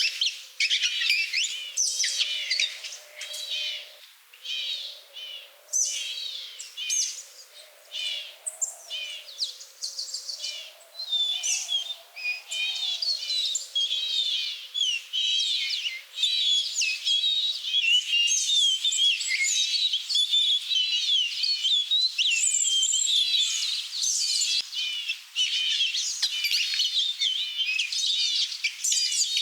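Songbirds chirping and singing, with many quick, overlapping high calls throughout. A faint, low, wavering sound runs underneath and fades out about two-thirds of the way through.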